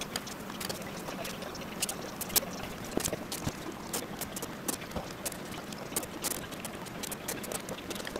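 Someone eating a bowl of ramen with chopsticks: irregular light clicks of the chopsticks against the ceramic bowl over a faint hiss.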